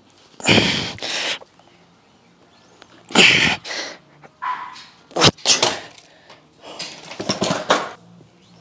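A man breathing hard through each pull of a seated cable row: loud forceful breaths about every two seconds. There is one sharp knock from the machine a little past halfway.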